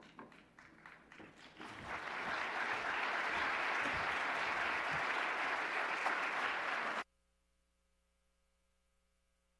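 Large audience applauding: scattered claps swell into full, steady applause about two seconds in, then cut off suddenly about seven seconds in, leaving only a faint hum.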